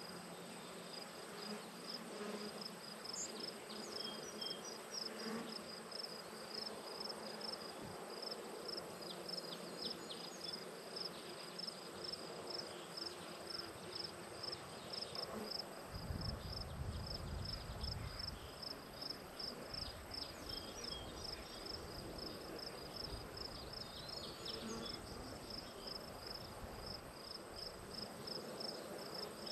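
An insect chirping in a steady high-pitched rhythm, about three to four chirps a second, over a faint outdoor hiss. A low rumble comes in about halfway through.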